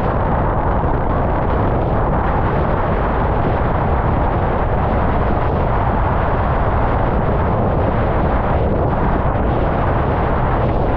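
Steady wind rumble and buffeting on a GoPro action camera's microphone, mixed with rushing water, as a slalom windsurf board planes at speed.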